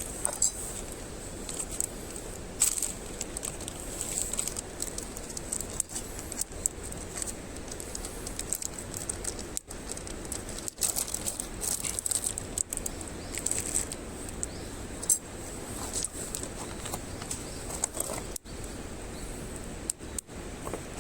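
Wood campfire burning, with irregular sharp crackles and pops over a steady hiss.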